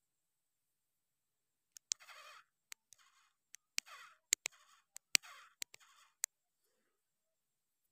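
Plastic toy tractor and trailers creeping over dirt: short squeaky scraping bursts about once a second, with sharp clicks in between.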